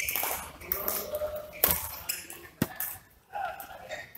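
Sharp strokes of badminton rackets on a shuttlecock in a large hall: three hits, about a second apart, with voices between them.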